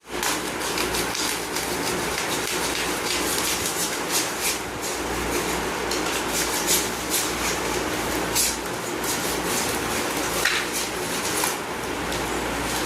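Packaging being handled and unwrapped: irregular crinkling and crackling with sharp clicks, over a steady low hum.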